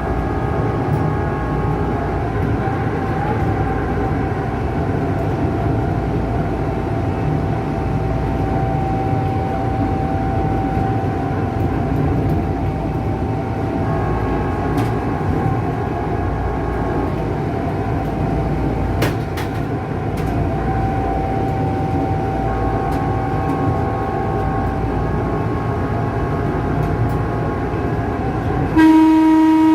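Tokyu 8500-series electric commuter train running, heard from the driver's cab: a steady rumble of the running with a humming tone that fades in and out, and a few sharp clicks. About a second before the end, the train's electric horn sounds loud and steady.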